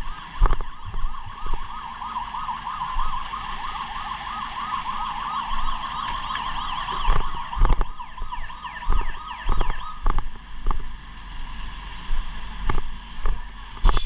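Emergency siren in a fast warbling yelp, the kind fire trucks sound while responding, fading out after about ten seconds. Scattered low thumps on the microphone.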